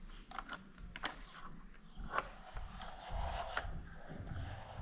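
A plastic toy front loader being handled: a handful of light clicks and knocks from its plastic parts, with soft rubbing and scraping in between.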